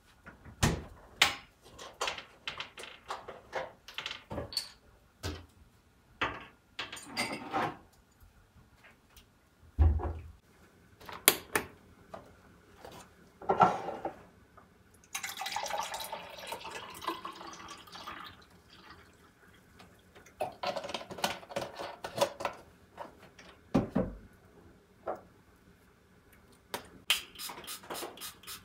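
Everyday household handling sounds: a long series of sharp clicks, knocks and light clatter of objects being picked up and set down, with a couple of dull thuds. About halfway through there is a few seconds of steady rushing.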